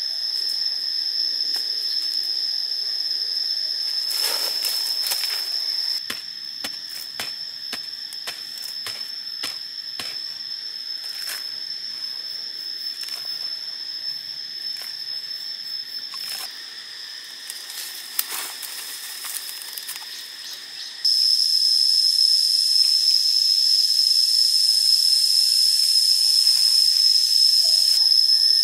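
Insects droning in one steady high whine, louder after a cut about two-thirds through. Under it, scattered soft knocks and scrapes of a bamboo stick digging into earth during the first two-thirds.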